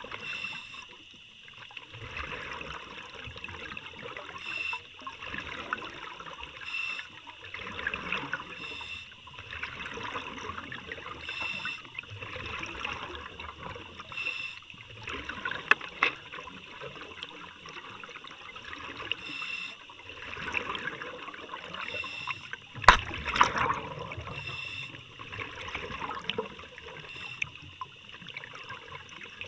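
Underwater bubbling and gurgling in uneven surges every few seconds, typical of a scuba diver's exhaled air, heard through a camera housing. A single sharp knock about 23 seconds in.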